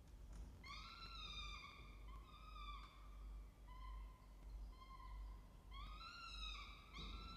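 Peregrine falcon chick giving a run of food-begging calls while the adult feeds it: about six thin pitched calls, each under a second, one after another.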